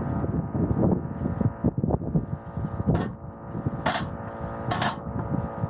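A small engine running steadily, with an uneven low rumble under it. A few sharp clicks come about three, four and five seconds in.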